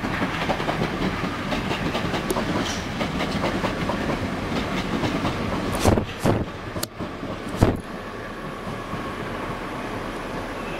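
Southeastern Networker electric multiple unit passing at speed, its wheels clattering rhythmically over the rail joints. There are a few sharp knocks about six to eight seconds in, and then the sound drops to a quieter steady rumble as the train draws away.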